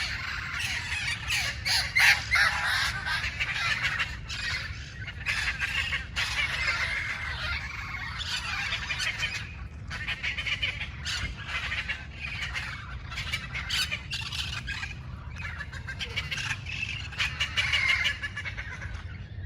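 A large flock of red-crowned parrots (Amazona viridigenalis) squawking and screeching continuously, many harsh calls overlapping, over a steady low rumble.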